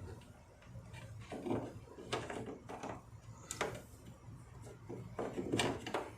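Hands fitting parts into a car's headlight housing: five or so short plastic-and-rubber clicks and knocks as an LED headlight bulb and its rubber dust cap are worked into place.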